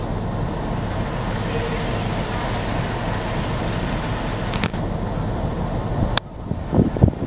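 Steady low rumble of an idling diesel locomotive engine over a hiss of background noise. A sharp click comes about six seconds in, followed by wind buffeting the microphone.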